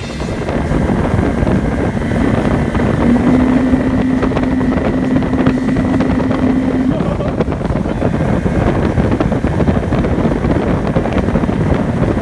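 Outboard motor running steadily on a moving boat, with wind buffeting the microphone. The motor's tone steps up slightly about three seconds in.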